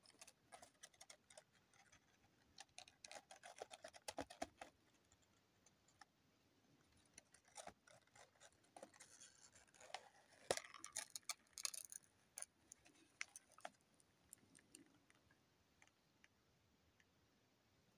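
Faint crinkling and crackling of a sheet of paper being folded and shaped by hand, in flurries of small crackles that are busiest about three and eleven seconds in and die away over the last few seconds.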